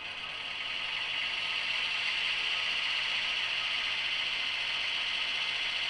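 Auxiliary-diesel sound effect from the sound decoder of a Brawa model of a DB class 213 (V100) diesel locomotive, played through the model's small loudspeaker. It fades in over the first second or two, then runs steadily as a high, even hiss.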